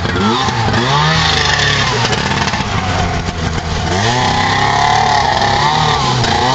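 Snowmobile engine in a golf cart revving hard while the cart spins in circles, its pitch climbing sharply just after the start and again about four seconds in, holding high in between.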